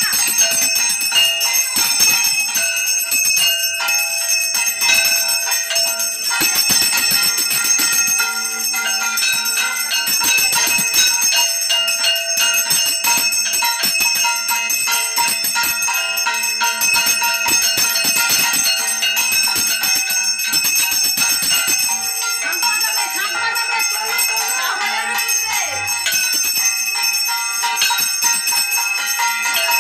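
Brass puja hand bell rung continuously, a dense, steady metallic ringing with many overlapping high tones.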